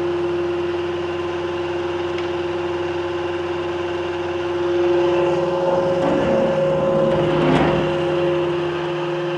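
Blanchard No. 11 rotary surface grinder running with a steady hum as its wheel spindle and magnetic chuck turn. About five seconds in, a louder rough grinding noise swells and then fades over about three seconds as the wheel feeds down onto the steel workpiece.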